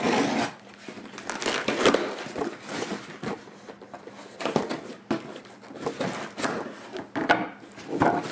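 A folding knife slicing along the packing tape of a cardboard shipping box, with irregular scraping and rustling of the cardboard and a few sharp knocks as the box is handled and its tape pulled open.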